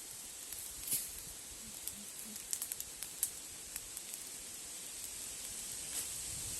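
Campfire crackling: scattered sharp snaps and pops, several in quick succession around the middle, over a steady hiss.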